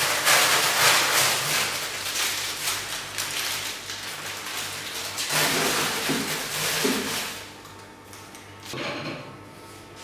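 Plastic bags of frozen food rustling and small items clattering as they are taken out of a refrigerator's freezer compartment and moved to another fridge. It goes quieter after about seven seconds, with a short knock from the fridge near the end.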